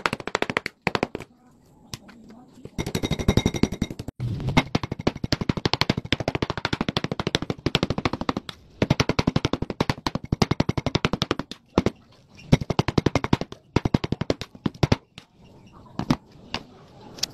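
Large kitchen knife chopping raw chicken breast into mince on a wooden chopping board: rapid, even strokes, several a second, in long runs with a few short pauses, thinning to a few separate knocks near the end.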